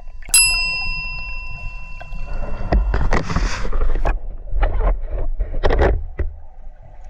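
A bright bell-like ding about a third of a second in, ringing out and fading over about two seconds. Then water sloshing and bubbling in uneven bursts around an underwater camera as freedivers move in the water.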